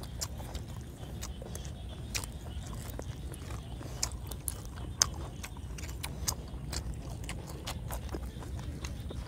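Close-up chewing and biting of boiled pig cheek meat, with scattered wet mouth clicks and smacks, the sharpest about four and five seconds in, over a steady low rumble.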